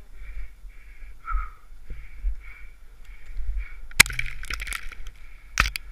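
Snow rider descending through deep powder among trees, with wind rumbling on the helmet camera's microphone and a scratchy swish repeating about twice a second. About four seconds in and again near the end come sharp crunching impacts as the rider drops into the snow and plows through it.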